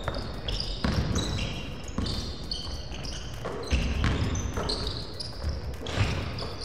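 A basketball being dribbled on a hardwood gym floor, with many short, high sneaker squeaks as players cut and stop on the court.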